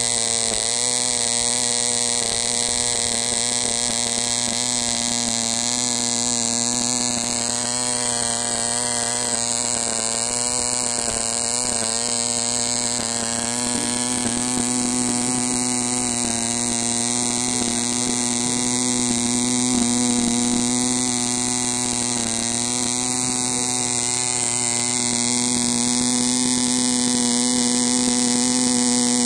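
A 0.15 cc Allbon Bambi model diesel engine, a tiny two-stroke, running steadily at high speed and turning a small nylon propeller. It makes a high-pitched buzzing whine whose pitch wavers slightly, growing a little louder near the end.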